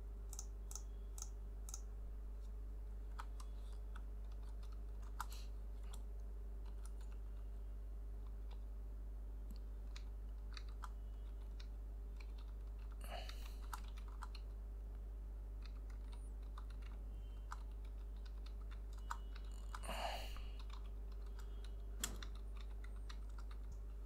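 Faint, scattered key clicks from a Dell KM3322W membrane keyboard being typed on, with the typing sound mostly muted, over a steady low hum.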